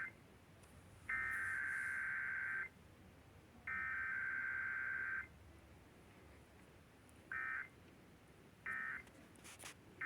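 Emergency Alert System (SAME) digital data bursts: the end of one long burst, two more long bursts of about a second and a half each with a second's gap between them, then three short bursts.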